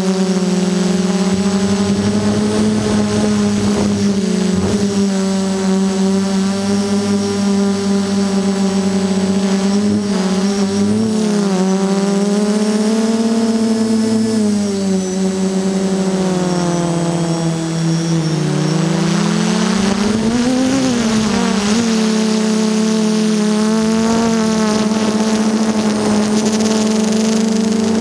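DJI Flame Wheel F330 quadcopter in flight: its four electric motors and propellers make a steady buzzing hum. The pitch drifts up and down with the throttle, dips low about two-thirds of the way through, then rises sharply and settles again. There are two brief rougher, noisier stretches.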